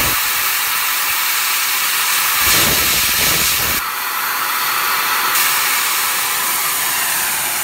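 High-pressure breathing air hissing steadily out through the opened fill valve as the SCBA cascade fill lines bleed down toward zero pressure. A short low rumble comes in about two and a half seconds in, and the hiss eases off slightly near the end.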